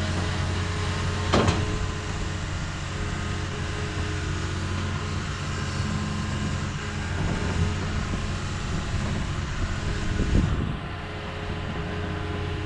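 Heavy machinery engine running steadily under load, with two sharp metallic knocks, one about a second in and one near the end.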